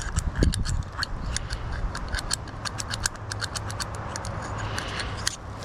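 Quick, irregular metallic clicking and tapping of a hand tool working on small lawn-tractor carburetor parts, several clicks a second.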